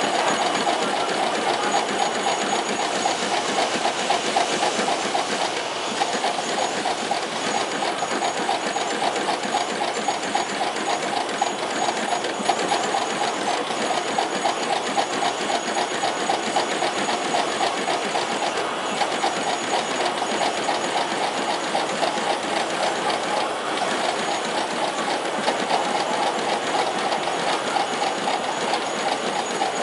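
A multi-head computerized rhinestone fixing machine running, its many heads setting hotfix rhinestones onto fabric with a steady, rapid mechanical clatter of dense clicks.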